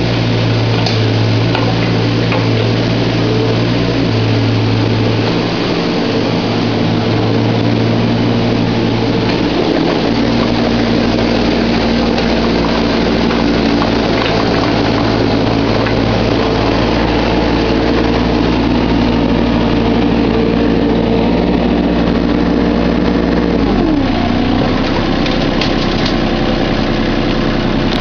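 Volvo EC15 mini excavator's diesel engine running steadily at working speed. About 24 seconds in, the engine note drops to a lower, steady pitch as the revs come down.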